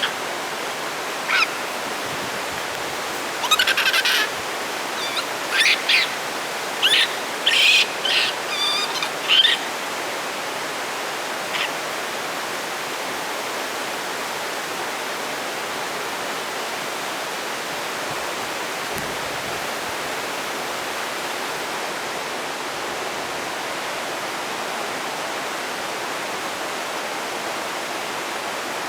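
A cluster of short, high-pitched animal calls in the first ten seconds, one more a little later, over a steady rushing hiss that runs throughout.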